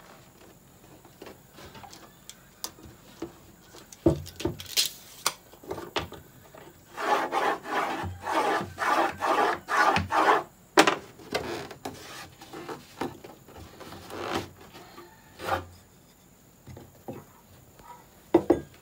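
Wood being worked by hand: a run of quick rubbing strokes on wood in the middle, about three a second, amid scattered taps and knocks of wooden pieces and tools on a plywood panel, with one sharp click just after the strokes.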